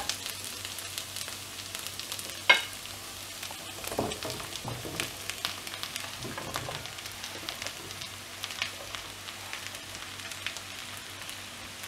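Potatoes and onions frying in oil in a wok, a steady sizzle with small crackles. Sliced button mushrooms are tipped in from a wooden chopping board, with a sharp knock about two and a half seconds in.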